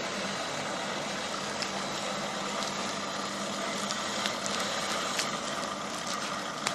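Steady mechanical hum of workshop machinery, with a few faint metallic clicks as a screwdriver works a foil-wrapped object into the end of a metal pipe.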